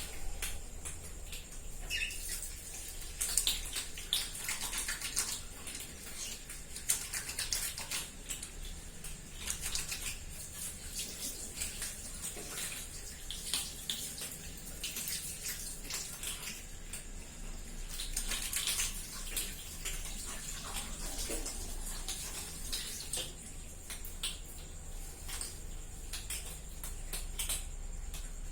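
A cat eating: a continuous stream of small, irregular wet clicks and smacks.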